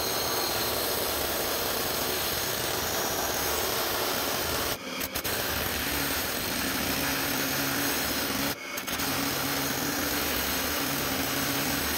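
Bosch SDS rotary hammer drill boring a long masonry bit through a brick wall, with a vacuum nozzle held at the hole for dust. Steady drilling, cutting out briefly twice, about 5 and 9 seconds in.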